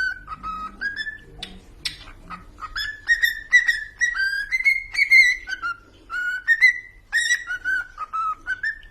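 Cockatiel whistling a tune: a quick run of short whistled notes, many sliding upward, with the melody stepping up and down in pitch.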